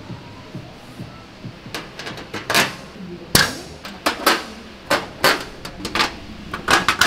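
Irregular sharp knocks and clinks of metal parts being handled and set down on a steel plate, about a dozen, most in the last five seconds.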